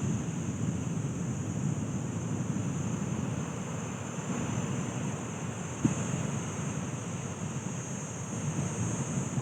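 Wind buffeting the microphone as a steady low rumble, over the continuous wash of sea surf, with one small knock about six seconds in.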